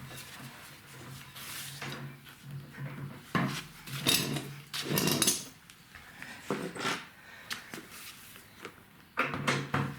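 Irregular metallic clinks, clatters and knocks of tools being handled in a small room. The loudest cluster comes about four to five seconds in, with a faint steady low hum underneath at the start.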